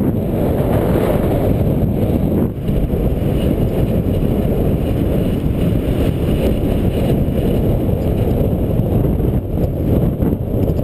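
Steady wind rush buffeting the microphone of a camera riding along on a bicycle, mixed with the low rumble of the bike's tyres rolling on a paved path.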